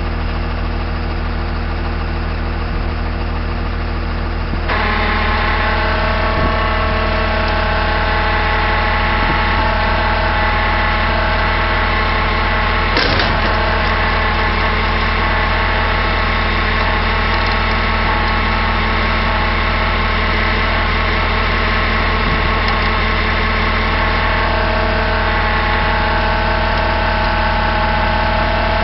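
Tow truck engine running steadily, stepping up to a higher, louder speed about five seconds in and holding there while the winch pulls the stuck SUV out of the ditch. A single brief clunk comes about halfway through.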